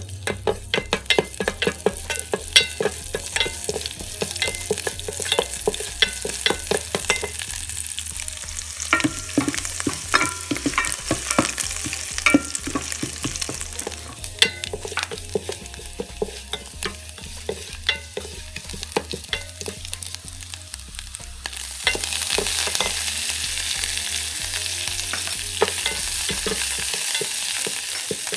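Green chillies and spices frying in hot oil in an electric rice cooker's pot, stirred with a wooden spatula: many sharp crackles and pops over a sizzle. From about three quarters of the way through, the sizzle turns louder and steadier.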